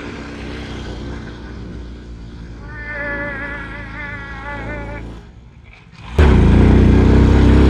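Honda C90's small single-cylinder four-stroke engine labouring up a steep climb, with a wavering high whine in the middle. About six seconds in, the sound jumps abruptly much louder and deeper as the engine strains in second gear.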